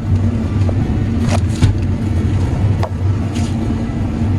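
Steady low drone of a John Deere S770 combine running, heard inside its cab, with a few short sharp clicks and knocks over it.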